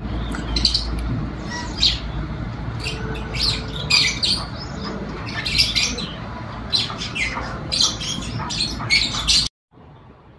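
Birds squawking in short, irregular calls over a steady low rumble; the sound cuts off abruptly near the end.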